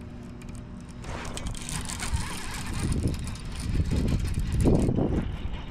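Electric trolling motor humming steadily, cutting off about a second in. Irregular rushing and rumbling noise follows and grows, loudest around four to five seconds in.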